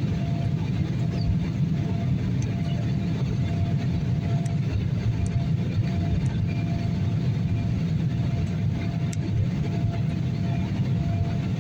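Steady engine and airflow noise heard inside an airliner's cabin, a deep even rumble with a faint steady hum over it.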